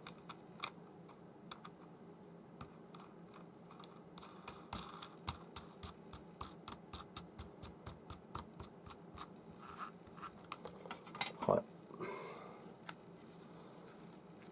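Small metal parts of a baitcasting reel being handled and fitted during reassembly: light clicks and taps, with a run of regular clicks, about three a second, through the middle.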